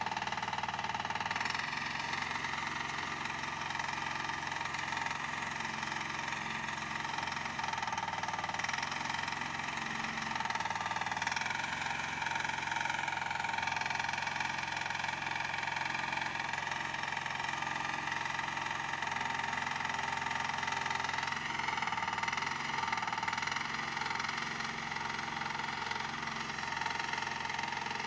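Engine of a small wheeled mini excavator running steadily while the bucket arm digs soil, with a brief dip in pitch that recovers around the middle.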